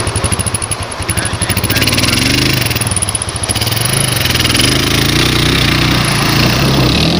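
Dirt bike engine running with a fast, even pulse, then opened up about two seconds in and held at a louder, steady pitch.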